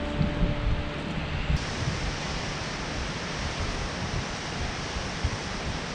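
Wind blowing across the microphone: a steady rushing hiss with uneven low rumbles. The last guitar notes of background music fade out in the first second.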